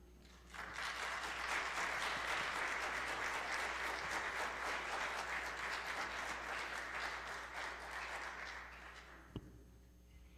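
A congregation applauding, starting about half a second in and tapering off near the end. A single short knock follows as the clapping dies away.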